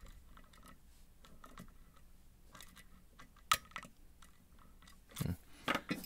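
Faint small metallic clicks and scrapes of a lock pick and tension wrench working in a Scorpion CX-5 cylinder lock, with one sharp click about three and a half seconds in and louder tool-handling knocks near the end.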